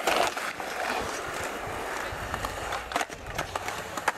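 Skateboard wheels rolling over concrete, a steady rumble, with a few sharp clacks about three seconds in and again near the end.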